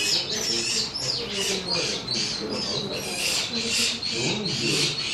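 Small birds chirping in a quick, steady run of short high calls, about three a second, over a low murmur of voices.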